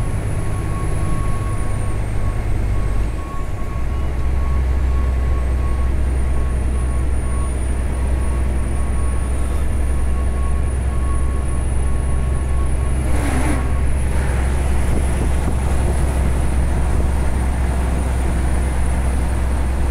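Truck cab interior while driving: a steady low engine and road drone that dips briefly about three seconds in, then settles lower and stronger. About thirteen seconds in there is a short whoosh as an oncoming vehicle passes.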